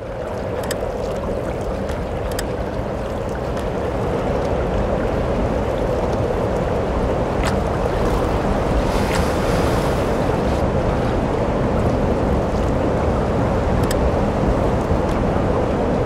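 A steady rushing noise, strongest in the low middle, fading in over the first few seconds and then holding level, with a few faint clicks.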